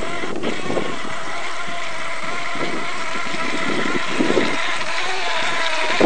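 Remote-control fishing boat's motor running with a steady whine while the boat pulls against a hooked fish.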